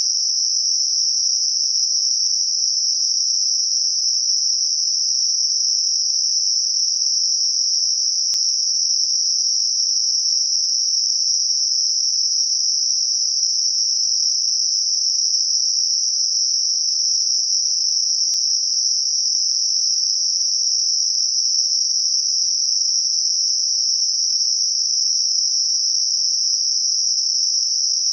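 Generated Gaussian narrow-band noise centred on 5.5 kHz, a tinnitus masker: a steady, high-pitched hiss with nothing else in it.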